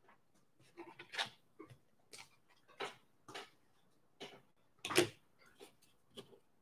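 Faint, irregular clicks and taps of trading cards being handled and set down, the loudest about five seconds in.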